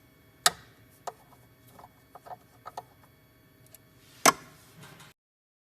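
Handling clicks and taps from fitting the probe in a CNC key cutting machine: two loud sharp clicks, one about half a second in and one near the end, with several lighter ticks between.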